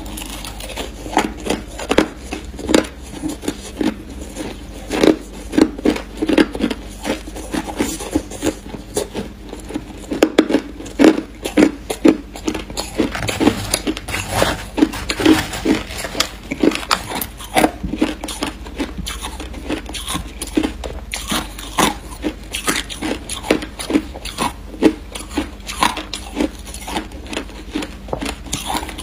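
Close-miked crunching of crushed ice being bitten and chewed, a fast, continuous run of sharp crunches.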